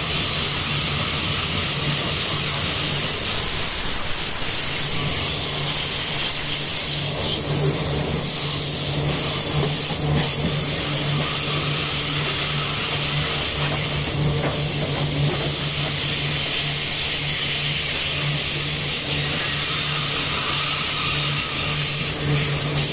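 Loaded iron-ore gondola wagons rolling past on steel rails: a steady rumble and hiss of wheels on track, with a few brief faint high wheel squeals a few seconds in and again around the middle.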